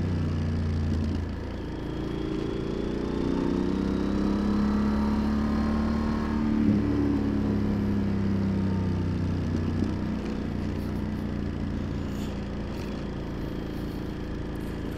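Yamaha XT1200Z Super Ténéré's parallel-twin engine running under way. The revs ease off about a second in, then climb again, with a brief dip near the middle.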